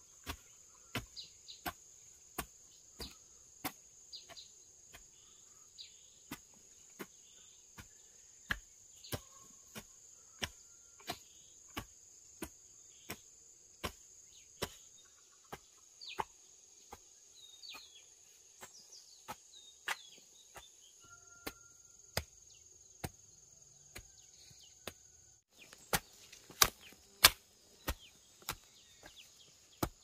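Steady rhythmic chopping, about two sharp strokes a second, the hardest strokes a few seconds before the end. Behind it a steady high insect drone that cuts off a few seconds before the end, and a bird chirps now and then.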